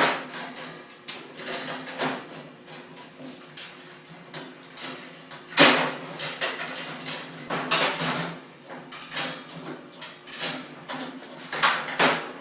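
Irregular clanks and knocks of tools and metal parts being handled while a go kart is taken apart, with the loudest knock about halfway through.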